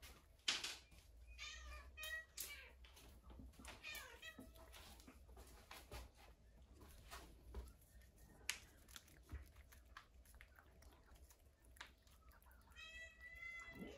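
Cat meowing: a few short, high meows in the first few seconds, then a longer meow near the end that drops in pitch.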